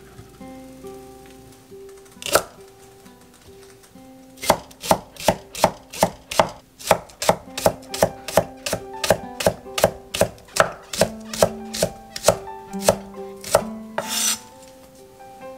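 Kitchen knife slicing green onion on a thick end-grain wooden cutting board: one knock, then a steady run of sharp chopping strokes, about two to three a second, each blade strike knocking on the wood. Near the end there is a short scrape as the blade pushes the slices across the board.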